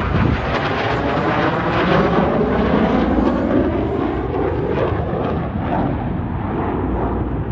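Airplane flying past at an air show: a loud, steady engine roar whose pitch slowly falls, turning duller toward the end as it moves away.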